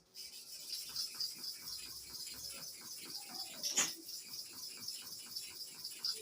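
A clipper blade being rubbed back and forth on a flat sharpening stone, a short scraping stroke about three times a second. The blade's cutting face has curved from misuse and is being lapped flat again.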